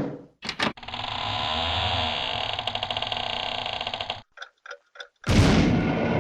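A string of cartoon sound effects: two quick clicks, then a fast ticking, rattling run lasting about three seconds, three short blips, and a loud sudden crash about five seconds in that is still dying away.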